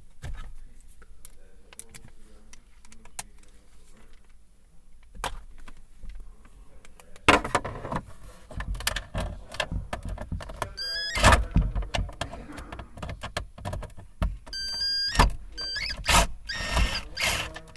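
Hand tools at work on the T25 Torx bolts holding a Ford Escape's radio display in the dashboard: scattered clicks and several sharp knocks and clatters, with a few short high squeaks as the bolts turn out.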